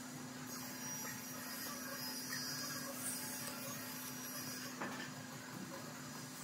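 Wooden straightedge scraping across wet cement mortar as the stove base is levelled, a steady soft scraping, with a low steady hum underneath.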